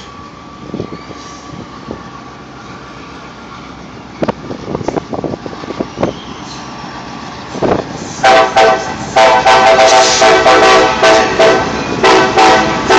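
CSX GP38-2 diesel locomotive's air horn, several chime tones together, sounding a loud string of blasts that begins about eight seconds in, some short and some held, with brief breaks between them.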